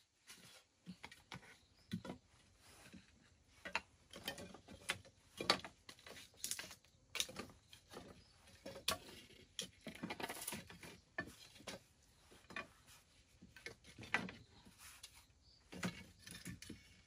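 Irregular light knocks, clicks and scrapes of objects being handled, coming every second or so with no steady rhythm.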